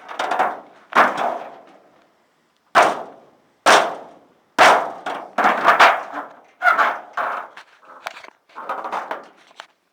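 Shed wall panels being knocked and pulled loose: a string of about nine loud, irregular bangs and clatters, each ringing briefly.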